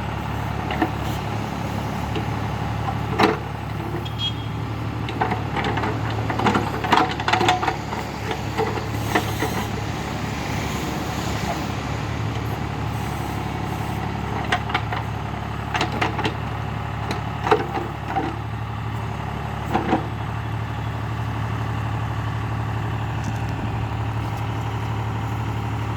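John Deere tractor's diesel engine running steadily while the tractor-mounted backhoe works, with scattered knocks and clatters in clusters, heaviest about a third of the way in and again past the middle.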